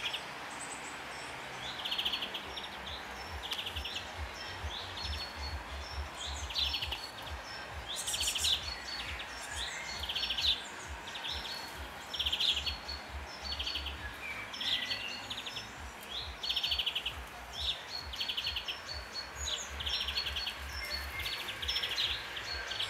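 Young blue tits calling: short, buzzy, high notes repeated about once a second, over a low rumble.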